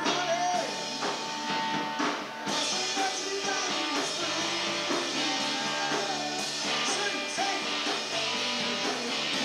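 Live rock band playing: electric guitar, bass and drum kit, heard through a camcorder's microphone from the room.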